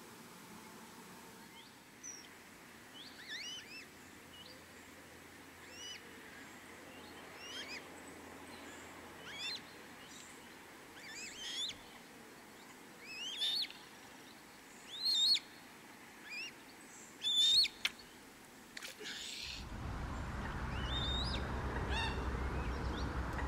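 A bird calling over and over, a short call that hooks upward every second or two, loudest towards the middle. Near the end a steady low rumble of background noise comes in under the calls.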